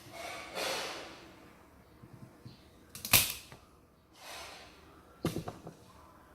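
Clicks and knocks of a mechanical keyboard's parts being handled while a key switch is swapped, mixed with soft rustling or scraping. There is one sharp, loud click about three seconds in and a quick run of small clicks a couple of seconds later.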